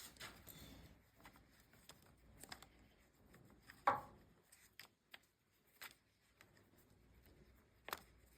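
Faint handling noises from hands working on parts: scattered light clicks and rustles, with a brief louder scrape about four seconds in and a sharp click near the end.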